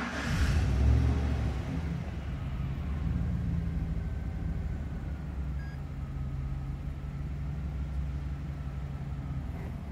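2011 GMC Sierra pickup's engine running at a steady idle, a little louder in the first second before settling into an even low rumble.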